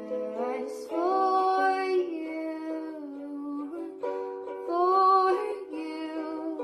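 Soft ukulele song: plucked ukulele chords under a wordless sung vocal line that swells twice.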